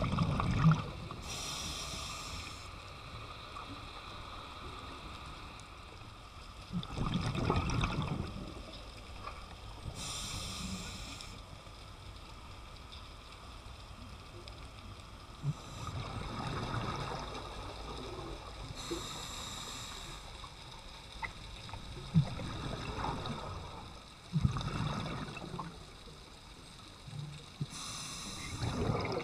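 Scuba breathing heard underwater: a regulator hissing on each inhale and exhaled bubbles gurgling out in bursts. The breaths repeat about every eight to nine seconds.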